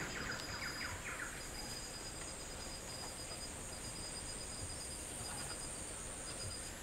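Insects chirping steadily in the background: a continuous high buzz with fainter pulsed chirps, and a brief rapid trill in the first second or so.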